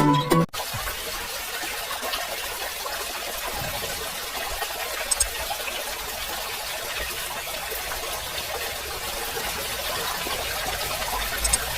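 Water running steadily in a thin stream, as from the outlet of a small submersible water pump.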